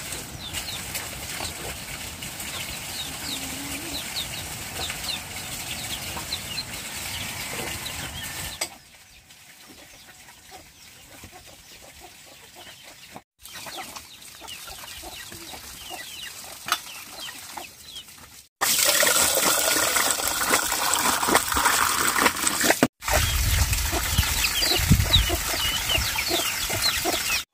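Chickens clucking with short high chirps, in several short clips. From about two-thirds of the way in, a loud steady rushing noise covers them, with a low rumble added in the final seconds.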